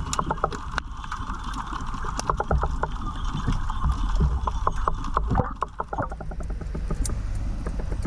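Underwater sound recorded by a submerged GoPro in its housing: a low rumble of moving water with many sharp clicks and crackles throughout, and a hiss that drops away about six seconds in.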